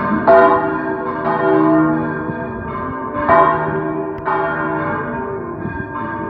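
Three church bells swung full circle together in a Valencian-style general 'volteo': the small 81 kg Rabajolet cast in 1662 (G), and the 244 kg (C) and 927 kg (F) bells cast in 1954. Fresh strokes come about a second apart over overlapping ringing from the three bells of different pitch.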